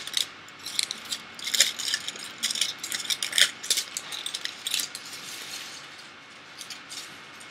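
Crumpled aluminium foil nail wraps crinkling and rustling as they are handled and gathered up. The crackling is dense for the first few seconds, then thins out to a few light crinkles near the end.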